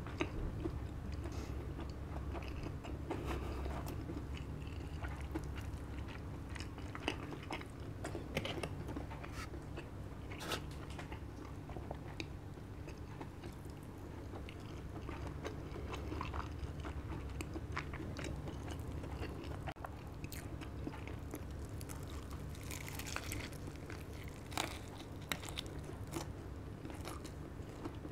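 Close-up chewing and biting of crispy KFC Double Down fried chicken, with scattered crunchy crackles from the breading all through.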